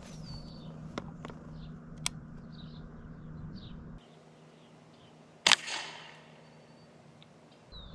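A single shotgun shot about five and a half seconds in, sharp, with a short echoing tail. Two small clicks come before it, and birds chirp faintly in the background.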